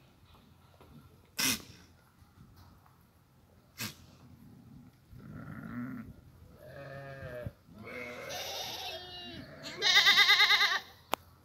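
Goats bleating: a few calls from about six seconds in, the loudest a long quavering bleat near the end. Two sharp clicks come before the bleating.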